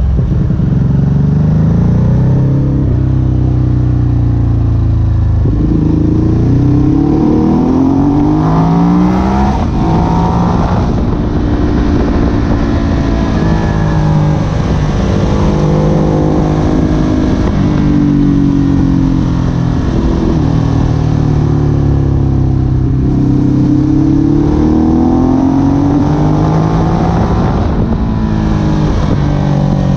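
Ducati Hypermotard SP's L-twin engine running loud, its revs climbing and dropping again and again.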